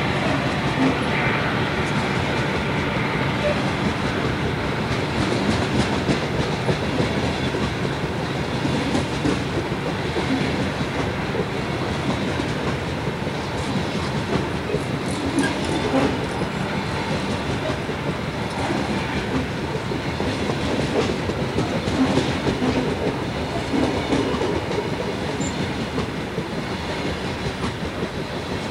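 Coal hopper cars of a freight train rolling past: a steady noise of steel wheels on rail, with clicking as the wheels cross rail joints.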